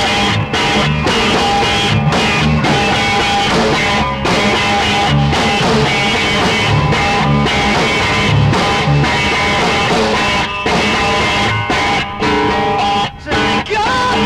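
Instrumental break in an indie rock song: guitar over a steady pulsing low beat, with a few brief sudden dropouts near the end.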